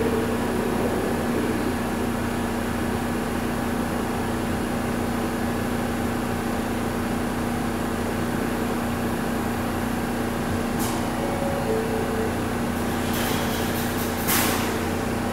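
A New York City Subway car standing at a station platform, its on-board equipment giving a steady hum. A few short hissing sounds come near the end.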